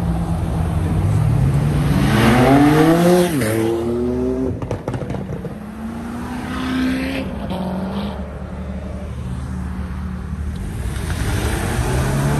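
A car engine accelerating hard, its pitch climbing to a loud peak about three seconds in and then dropping sharply at a gear change, pulling up again a few seconds later. The engine climbs once more near the end.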